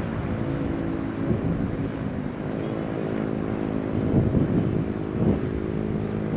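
Airbus A330-300 jet engines running with a steady multi-tone hum, with wind buffeting the microphone in gusts.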